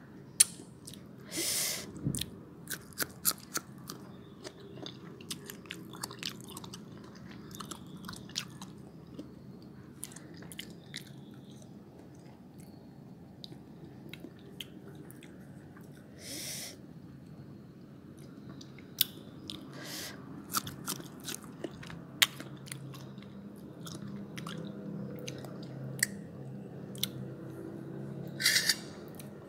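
Close-up crunching and chewing of raw young mango slices dipped in chili and salt, with many sharp crunchy bites. A few short hissing sounds break in, once about a second in, once midway and once near the end.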